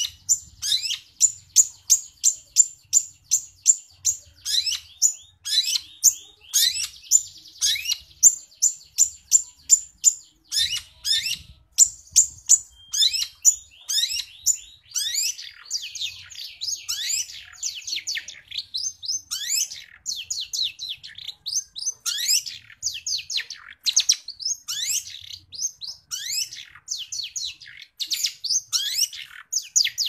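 Long-tailed shrike singing vigorously, its song full of mimicked Eurasian tree sparrow chirps. It gives a quick series of sharp, high chirps, about two a second for the first ten seconds or so. It then moves into faster, more varied downward-sweeping notes.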